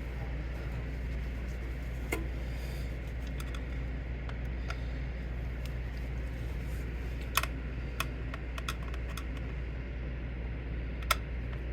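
A few light, sharp clicks and taps from handling small parts on the printer, over a steady low hum.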